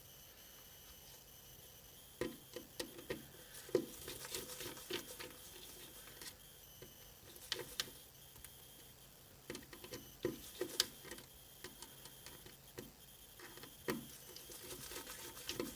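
Small irregular clicks and ticks of a tiny PH000 Phillips screwdriver working a screw out of an iPhone 6s, metal tool tapping on the screw and phone frame, starting about two seconds in.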